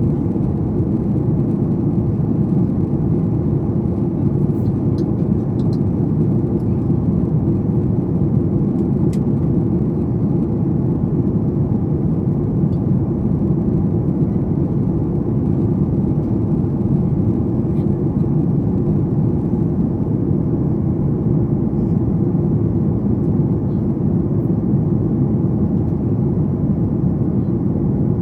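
Boeing 737 MAX 8 cabin noise from a window seat during descent: a steady, even low rumble of airflow over the fuselage and the CFM LEAP-1B engines.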